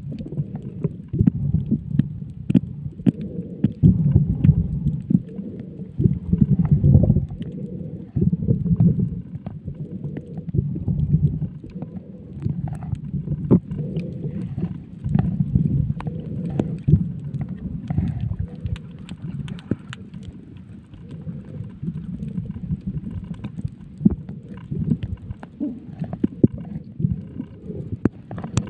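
Muffled sound picked up by a camera held underwater: an uneven low rumble of moving water, with many short clicks and pops scattered through it.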